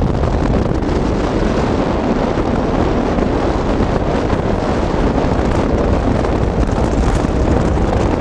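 Steady wind rushing and buffeting on the microphone of a camera in a moving car, over the car's road and engine noise.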